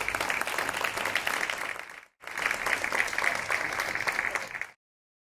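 Audience applauding, a dense patter of many hands clapping. It breaks off for an instant about two seconds in, then resumes and cuts off abruptly near the end.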